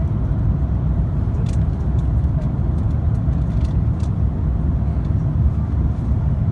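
Steady low rumble inside the cabin of an Airbus A350-900 descending on approach with flaps extended: engine and airflow noise heard through the fuselage, with a few faint ticks.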